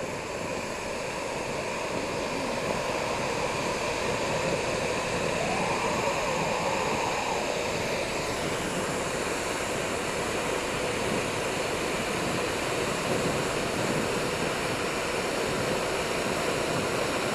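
Jetboil Zip canister gas stove burning under its cup, a steady rushing hiss as the water heats towards the boil. A faint rising whine comes in about five seconds in.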